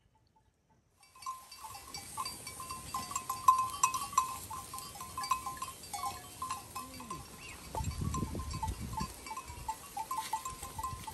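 Small livestock bleating, starting suddenly about a second in, with the loudest low call about eight seconds in over a busy stream of short, repeated high notes.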